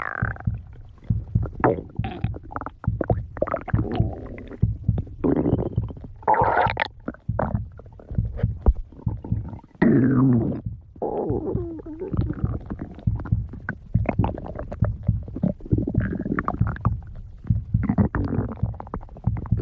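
A person's stomach growling: irregular low rumbles and gurgles broken by many short pops, with several longer gurgles that slide up and down in pitch.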